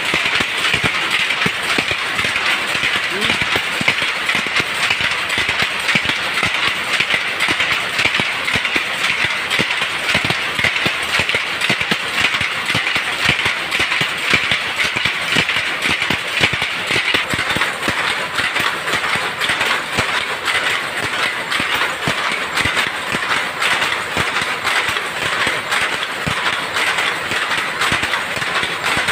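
Underpick power loom with a jacquard harness weaving, a fast steady clatter of shuttle picks and sley beat-up strokes that keeps on without a break.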